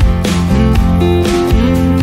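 Background music led by strummed guitar, with a steady beat of about two strokes a second.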